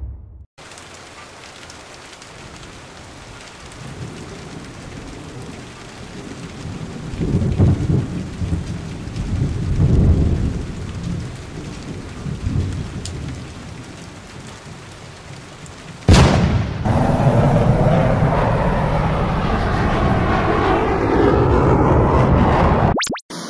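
A steady rushing noise like rain, with low rumbles that swell and fade several times. About two-thirds of the way in it jumps suddenly to a louder, fuller rush, which cuts off shortly before the end.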